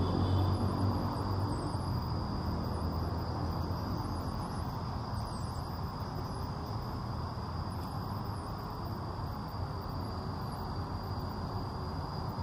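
Outdoor park ambience: a steady low rumble of distant traffic under a constant thin, high insect whine, with faint high chirps now and then.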